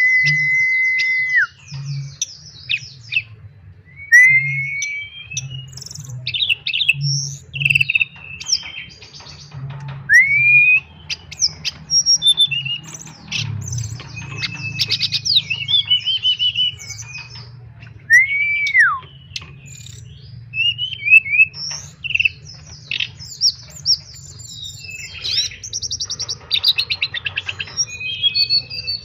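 A tledekan (sulingan) songbird singing a varied, energetic song: a long steady whistle at the start, clear whistled notes that slur up and down, and rapid chattering phrases. A low pulsing hum runs underneath.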